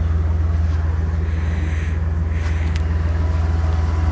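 1995 Dodge Dakota engine idling steadily, still warming up to operating temperature before its reported noise can be diagnosed.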